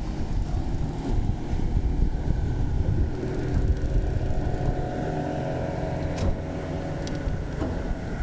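Boat motor running steadily, with wind buffeting the microphone.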